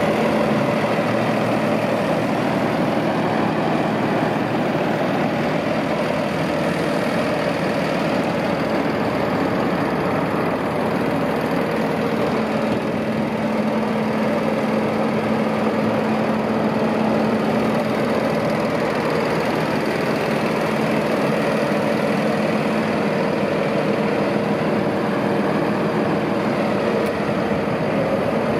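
Fendt 820 Vario tractor's six-cylinder diesel engine idling steadily.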